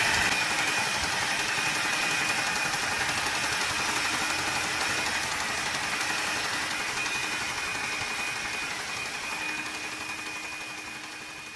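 Hot-air gun blowing steadily: an even hiss with a thin high whine that slowly fades near the end. It is heating the engine's electronics to bring on a stall that only happens when warm.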